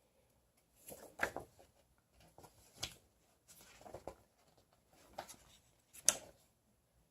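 Board game contents being handled and unpacked: a series of light knocks and rustles, the sharpest about six seconds in.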